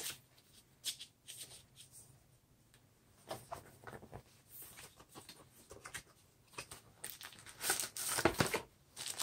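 Packaging being handled while items are taken out of a gimbal's box: scattered light rustles and clicks, with a louder stretch of rustling about three quarters of the way through.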